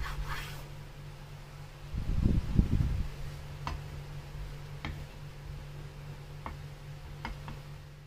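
Kitchen knife cutting the crusts off a slice of bread on a bamboo cutting board. A short scratchy rasp of the blade through the crust comes at the start. Dull low thuds follow about two to three seconds in, then several light ticks of the knife on the board, all over a steady low hum.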